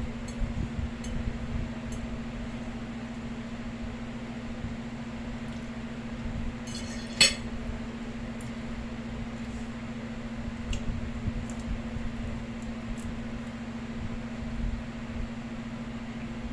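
Close-up eating and handling of plate and food, with soft low knocks and one sharp clink about seven seconds in, over a steady low hum.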